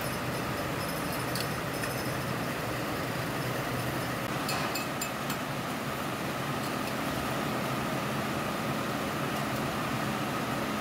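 Steady drone of factory machinery, polypropylene tape-winding machines running, with a few light clicks about a second and a half in and again around four to five seconds in.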